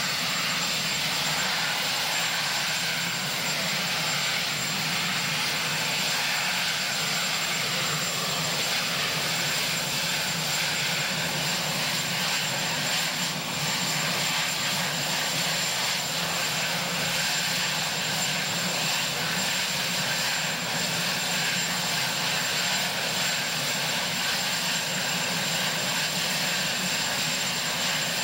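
Marine One helicopter running on the ground: a steady engine rush with a thin, steady high whine over it, unchanging throughout.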